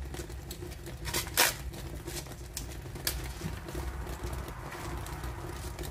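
Crisp savoy cabbage leaves crackling and snapping as damaged bits are picked and torn off by hand: a run of short sharp clicks, the loudest about a second and a half in, over a low steady rumble.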